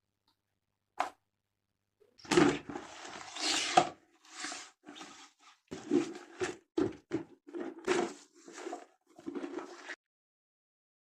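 A single click about a second in, then a run of irregular scrapes and knocks from kitchen handling during fish preparation.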